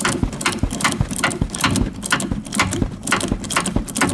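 Ratchet wrench clicking in a steady rhythm, about three clicks a second, as it loosens the upper nut on a rear strut.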